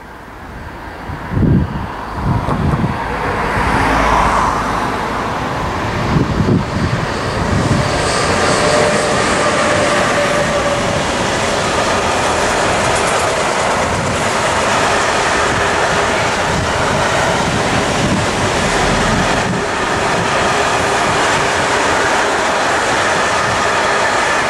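Long freight train of wagons carrying semi-trailers rolling past close by. The sound builds over the first few seconds as it arrives, then holds as a steady rumble of wheels on rail, with a faint held squeal in it.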